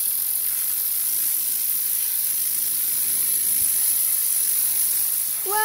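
Steady hiss of compressed air at about 100 PSI jetting from an air-compressor blow gun onto a fidget spinner to spin it.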